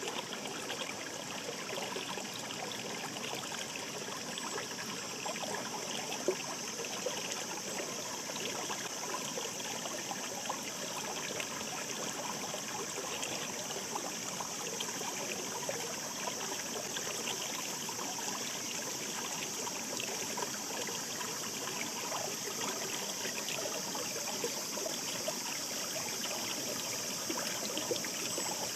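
A shallow mountain stream babbling steadily over rocks, with a constant rush of water and many small trickling splashes.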